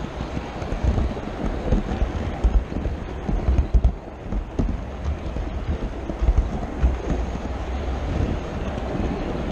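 Rumbling clatter of an HO scale model train carrying a small camera as it rolls along the track, with irregular knocks as the wheels cross rail joints and turnouts.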